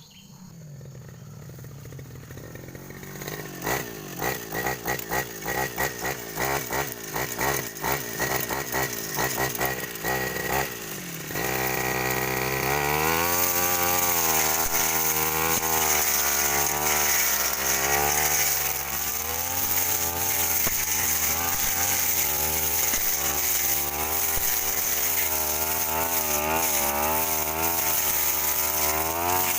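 A Stihl brush cutter's two-stroke engine runs unevenly at low speed, pulsing, for several seconds, then about eleven seconds in goes to full throttle and runs at high speed, its pitch wavering up and down under load as it cuts through dense undergrowth.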